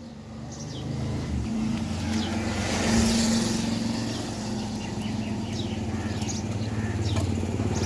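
A motor vehicle's engine running steadily, swelling over the first second and loudest about three seconds in, with faint bird chirps above it.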